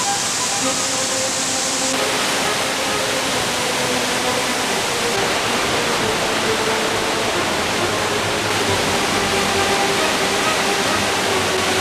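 Steady rush of water in a rocky mountain stream, with soft instrumental music playing over it.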